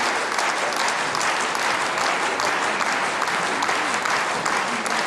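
A large theatre audience applauding steadily, many hands clapping at once.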